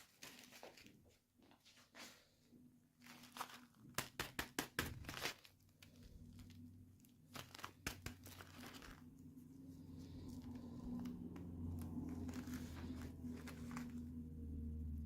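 Toy packaging crinkling and tearing as it is opened by hand, with a quick run of sharp clicks about four seconds in. A low steady hum comes up in the second half.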